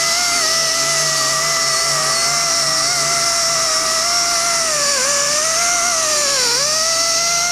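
Pneumatic Dotco die grinder running at about 12,000 RPM with a steady high whine and air hiss as its abrasive disc sands composite. The pitch sags briefly twice, about two-thirds of the way through and again a second and a half later, as the grinder is loaded against the work.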